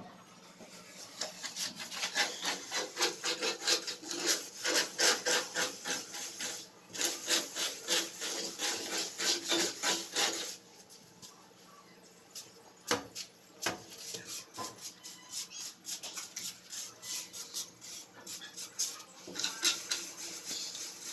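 A plastering float rubbing and scraping over fresh cement plaster in quick back-and-forth strokes, a few a second. The strokes stop briefly about halfway, then go on more slowly and unevenly.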